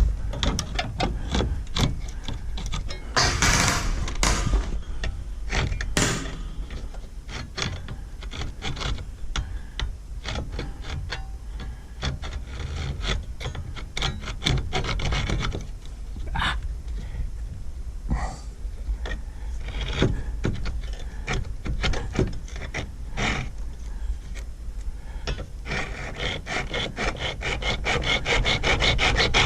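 Hand-tool work on a wooden chicken-coop door latch: irregular rubbing and scraping with scattered clicks and knocks, becoming a denser rasping stretch near the end.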